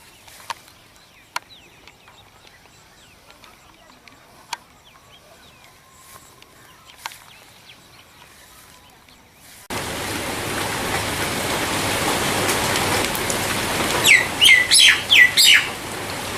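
Wild birds calling. The first half is quiet, with faint chirps and a few sharp ticks. Then, after a sudden cut, a loud steady rushing noise takes over, and near the end a bird gives a quick run of about five loud calls, each sliding down and then levelling off.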